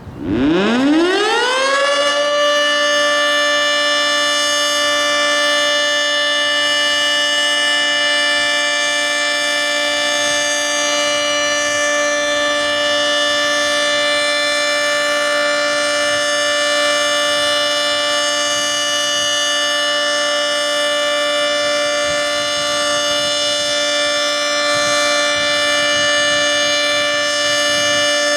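Federal Signal 2T22 dual-tone outdoor warning siren winding up from a standstill, its pitch rising over about two seconds into a steady, loud two-tone chord held without a break: the steady Alert signal.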